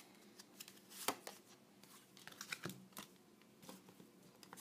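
Faint, scattered soft clicks and taps of a deck of oracle cards being handled as a card is drawn.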